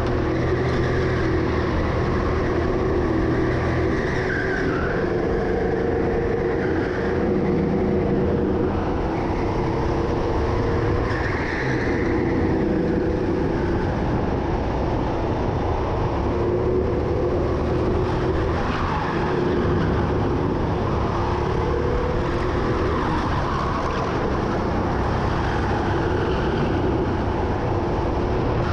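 Indoor racing go-kart running at speed, heard onboard, its motor note rising and falling a little through the lap, with brief tyre squeals in places.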